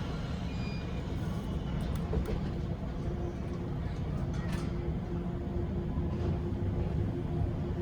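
Running sound inside a 185-series electric multiple unit motor car, whose traction motors are MT54s: a steady low rumble with a steady tone joining about three seconds in.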